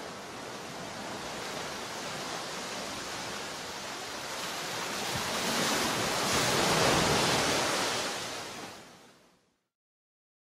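Rushing surf, a steady wash of sea noise that swells for a couple of seconds past the middle, then fades out to silence near the end.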